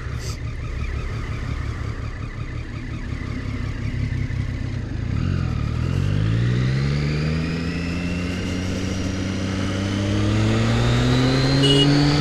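A 2014 Triumph Street Triple R's 675 cc inline-three idling, then pulling away about five seconds in, its pitch rising as it accelerates and then holding steadier.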